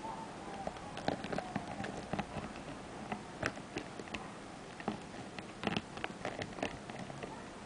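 Irregular light tapping and clicking from a rosy-faced lovebird moving about on its perch while doing its forward-roll trick.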